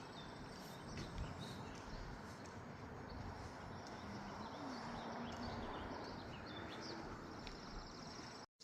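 Small birds chirping with short, scattered high calls over a steady outdoor hiss, with a quick trill near the end. The sound cuts out abruptly right at the end.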